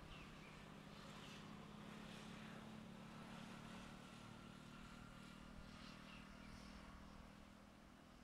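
Faint, steady hum of a distant engine, with a few faint high chirps over it.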